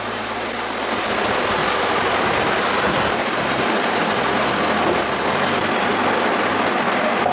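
Potato chunks shallow-frying in hot oil in a nonstick kadai, a steady sizzle.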